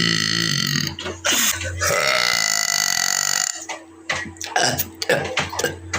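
A woman belching: one belch ending about a second in, then a long drawn-out belch lasting about two seconds.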